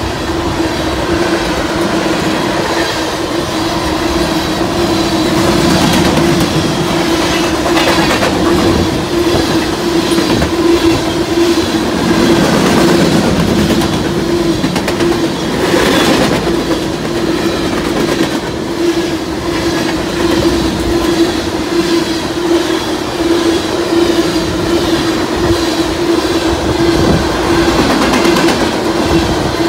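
Loaded covered hopper cars of a freight train rolling past close by: a steady rumble with wheels clacking over the rail joints and a steady tone held under it. About halfway through there is one sharp bang.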